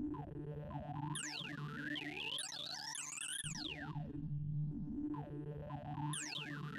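ArrayV sorting-visualiser audio: synthesized tones whose pitch follows the values being compared as Circle Sort works through an almost sorted array of 1,024 numbers. It comes out as repeated sets of quick overlapping pitch glides, falling and then rising, over a steady low tone.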